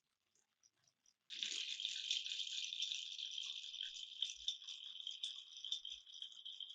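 Steady rattling from a toy marble-run set. It starts suddenly a little over a second in, after a few faint clicks, and keeps going.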